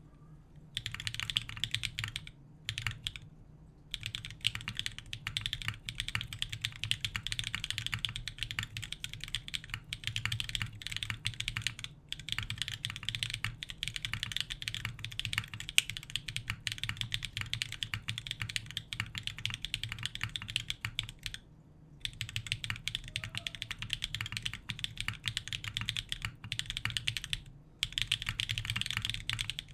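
Fast, continuous typing on a Geon Frog Mini mechanical keyboard with lubed Dark Jade linear switches, an aluminium plate and DCS keycaps. It is a dense run of keystroke clicks, broken by a few brief pauses.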